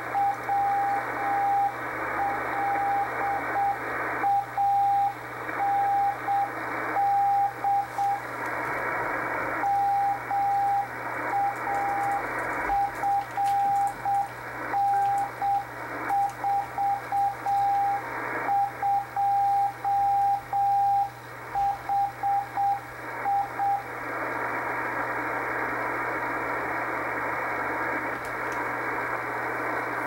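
Slow Morse code (CW) from an experimental HF propagation-test beacon, heard through a shortwave receiver as a single mid-pitched tone keyed on and off at about 9 words per minute over band static. The keying stops about 24 seconds in, leaving the hiss of the static and a low hum during the beacon's pause between transmissions.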